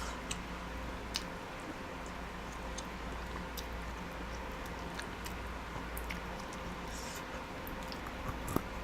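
Faint eating sounds of a person chewing chicken curry and rice: scattered soft, wet mouth clicks over a steady low room hum.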